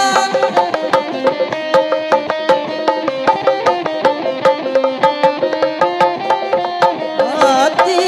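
Live Sundanese benjang/reak processional music: hand-held drums struck rapidly with sticks under a held melody line that steps between notes, with a sliding rise near the end.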